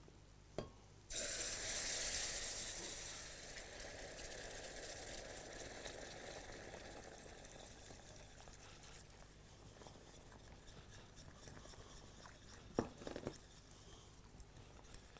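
Hot butter roux poured from a stainless frying pan into hot milk in a steel saucepan, for a béchamel. It sizzles, with a hiss that starts suddenly about a second in and slowly dies away over several seconds. A couple of sharp metallic clinks come near the end.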